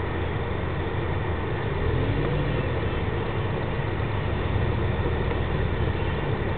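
A car engine running at low speed, a steady low rumble heard from inside the car's cabin.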